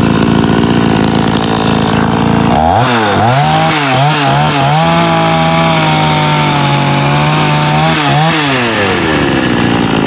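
CS5280 52 cc two-stroke chainsaw idling, then revved in a few quick blips, held at high revs for about three seconds, and let fall back to idle near the end.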